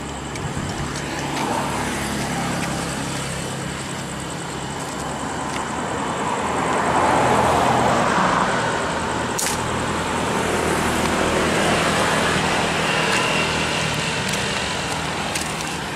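Road traffic: vehicles passing close by, the noise swelling to its loudest about halfway through, easing, rising again and then fading.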